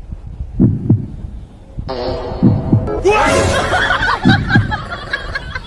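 Pairs of low thumps from a toy poodle's body, amplified through a karaoke microphone pressed against it, repeating about every two seconds like a slow heartbeat. From about three seconds in, a louder layer of sliding tones runs over them.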